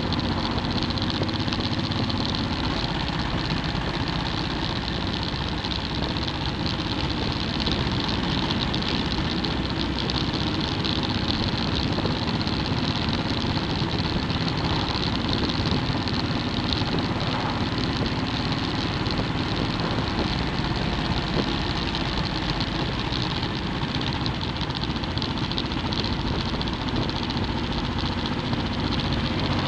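Motorcycle engine running at a steady cruising speed under constant wind and road noise, heard from the rider's own bike.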